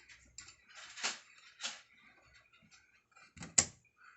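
A few short scrapes and clicks from copper refrigeration tubing being bent and handled, with the sharpest click near the end.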